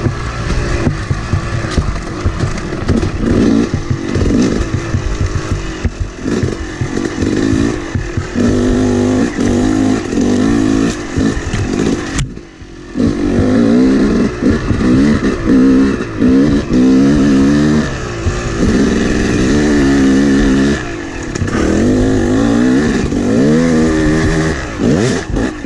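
A 250cc two-stroke Yamaha dirt bike engine revving up and down under load as the rider works the throttle over rough trail, heard from the rider's position on the bike. About twelve seconds in, the throttle is briefly shut off and the sound drops away for a moment before the engine picks up again.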